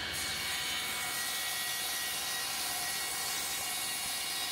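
Table saw running steadily with a constant whine while trimming a plywood piece fed along the blade.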